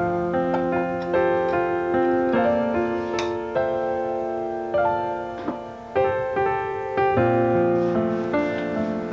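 Background piano music: held notes and chords that change every second or so.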